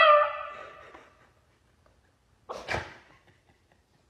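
A toy Australian Shepherd's howl into a karaoke microphone ending, its pitched tone fading out over about the first second. Then quiet, broken about two and a half seconds in by one brief double sound.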